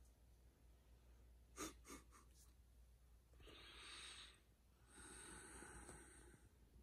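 Near silence with faint breathing: two soft clicks, then two breaths about halfway through, the second one longer.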